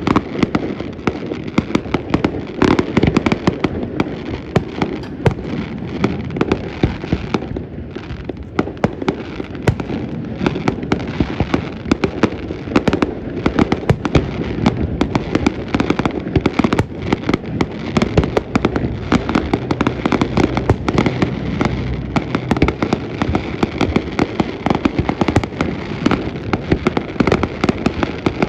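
Fireworks finale: a dense, continuous barrage of bangs and crackling bursts, many shells going off every second, with a slight lull about eight seconds in.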